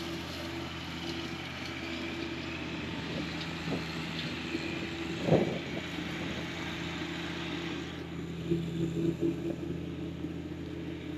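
A John Deere 1025R compact tractor's three-cylinder diesel engine running steadily, with a short knock about five seconds in.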